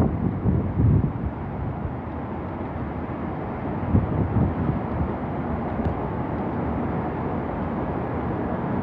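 Hurricane wind rushing steadily over the microphone, with stronger gusts about a second in and about four seconds in.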